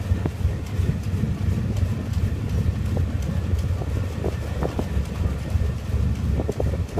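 Lifeboat engine running with a steady low rumble, wind buffeting the microphone with a few short knocks and gusts.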